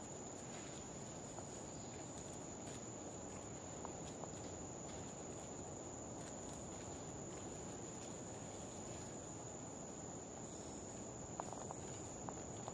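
Steady high-pitched drone of rainforest insects, unbroken throughout, with a few faint clicks and rustles near the end.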